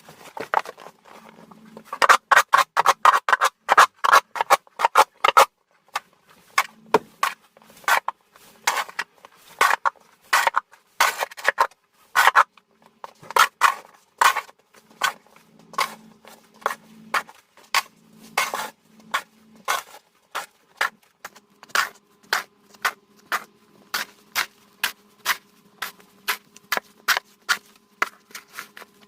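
Snow being cleared from a sidewalk: a long run of short, sharp scraping strokes, one to three a second, coming fastest a couple of seconds in. A faint steady hum lies underneath.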